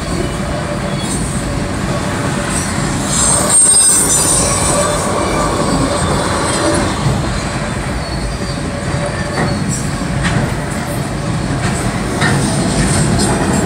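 Freight train of autorack cars rolling past a grade crossing, with a steady rumble of wheels on rail. A high wheel squeal comes about three to four seconds in, and a few sharp clicks follow later as wheels pass over rail joints.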